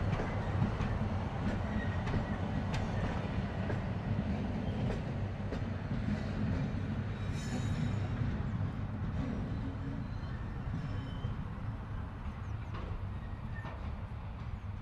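Class 37 diesel locomotive sound: a steady low engine rumble with scattered clicks, and a brief high squeal about halfway through.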